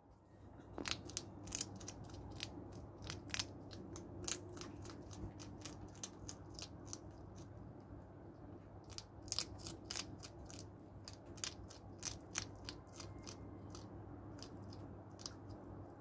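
Hedgehog loudly crunching dry cat food kibble: an irregular run of sharp crunches, several a second, as it bites and chews the pellets.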